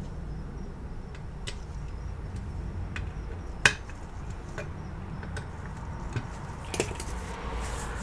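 Scattered small clicks and taps of gloved hands handling a cable modem's circuit board with its finned metal heatsink, one sharper click a little under halfway through, over a steady low background rumble.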